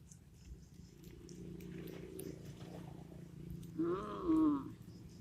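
An animal's voice: a low steady rumble, then one drawn-out call about four seconds in that rises and falls in pitch.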